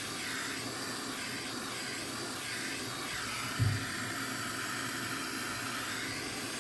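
Electric heat gun blowing a steady hiss of hot air, shrinking heat-shrink tubing over a soldered power-cord splice. A brief low thump about three and a half seconds in.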